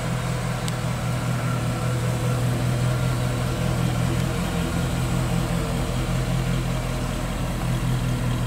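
The 5.7 L LT1 V8 of a 1934 Chevrolet Master Deluxe hot rod running at low speed as the car pulls out and drives past. It makes a steady low engine note that grows a little louder in the middle as the car goes by.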